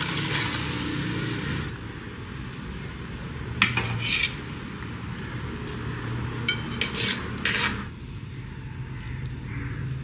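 Hot ghee sizzling for the first second and a half or so, then a wire skimmer scraping and clinking against a copper pot and a steel plate as fried onion, garlic, ginger and tomato are lifted out of the ghee and tipped onto the plate, with a few sharp clinks about four seconds in and a cluster of them in the later part.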